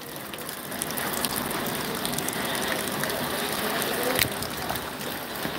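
Steady rain falling on floodwater and hard surfaces: a dense, even patter of drops, with one sharp click about four seconds in.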